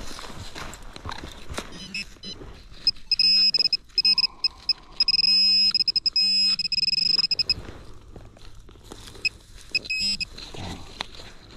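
Metal detector pinpointer buzzing in loud, stuttering on-off bursts as it is probed into the dig hole, alerting on a buried metal target, with soft scrapes and rustles of soil and leaves around it.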